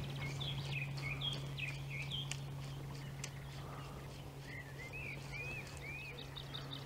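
A small bird singing: a quick run of short down-slurred notes, then a few arched notes about four and a half seconds in, over a steady low hum.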